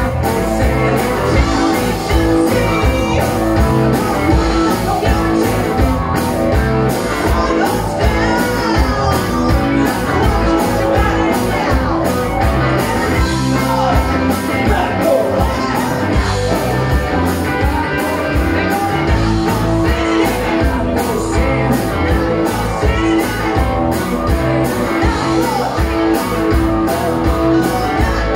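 A blues band playing live: a woman singing into a microphone over two electric guitars, bass guitar and a drum kit keeping a steady beat.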